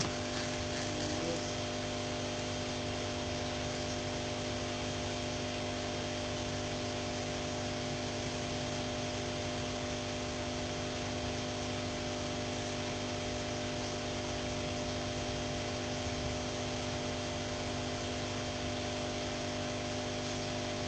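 Steady machine hum with a hiss, made up of several fixed tones that hold unchanged at a constant level.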